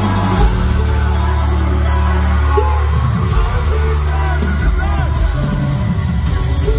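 Live concert music over a loud PA: a rock-arranged pop song with long held bass notes and singing over it, with some shouts from the crowd.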